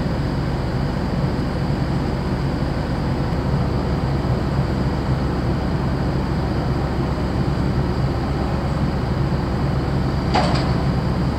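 Steady low hum of the diesel machinery of the moored ferry Sarubia Maru, running before departure. A brief sharp higher sound cuts in once, about ten seconds in.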